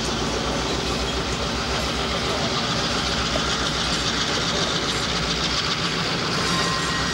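Georgia Southwestern diesel locomotive running as it rolls past, a steady engine hum with wheel and rail noise, and a brief thin squeal from the wheels near the end.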